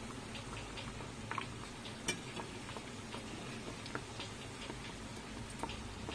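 Kachoris deep-frying in a kadai of oil on a low flame: a quiet crackle of scattered small pops and ticks, with one sharper click about two seconds in.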